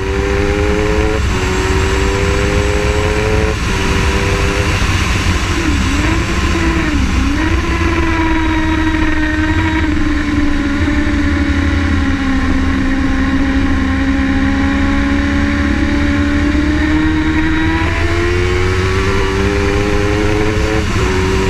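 Honda CBR1000SP Fireblade's inline-four engine at hard throttle on track. Its pitch climbs and snaps down at quick upshifts about a second and three and a half seconds in, dips briefly twice around six and seven seconds, and holds a long steady note through the middle before climbing through more upshifts near the end. Heavy wind rush underneath.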